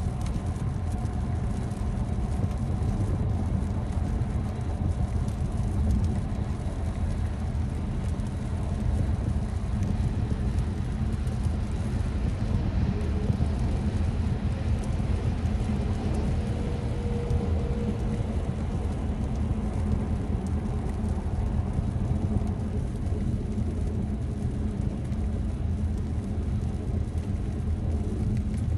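Steady road and tyre noise heard from inside a car's cabin at motorway speed on a wet road.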